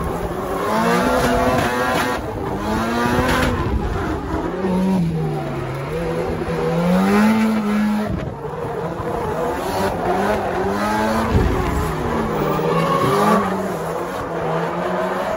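Drift car engines revving up and down, their pitch rising and falling again and again, over a steady rush of tyre noise with some tyre squeal as a red BMW E36 and the chase car slide in tandem.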